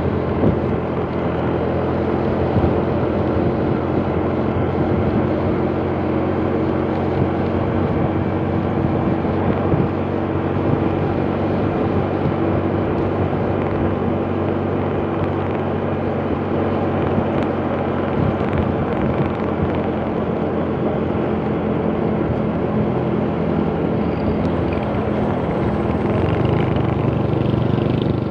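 Small automatic motor scooter's engine running steadily while riding along, with wind and road noise over it. It grows a little louder near the end.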